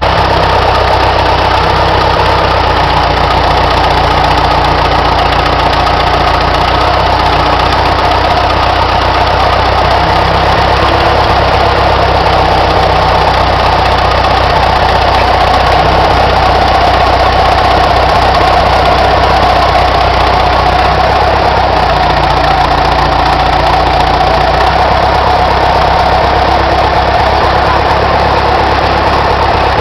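Backhoe loader's diesel engine running loud and steady, heard close from the operator's seat; its low hum shifts slightly a few times as the backhoe arm is worked.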